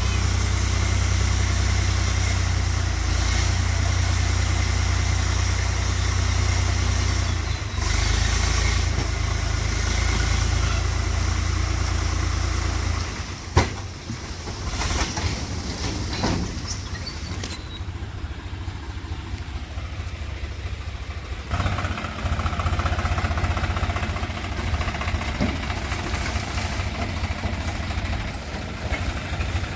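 Heavy diesel machinery running with a steady, deep engine drone. The drone drops back about 13 seconds in, with a sharp knock at that moment and a few lighter knocks afterwards.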